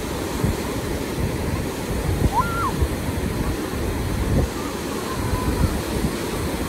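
Ocean surf breaking and washing up the beach, a steady rushing noise, with wind gusting on the microphone.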